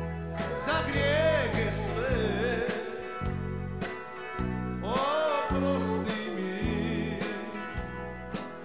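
Live band music with a male lead singer: two sung phrases with a wavering vibrato, over bass guitar, drums, keyboards and electric guitar.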